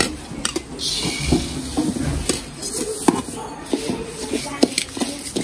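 Sesame seeds poured from a steel vessel into an aluminium kadai with a brief rushing hiss, then a metal ladle stirring and scraping the seeds, clinking and knocking against the pan again and again as they are dry-roasted.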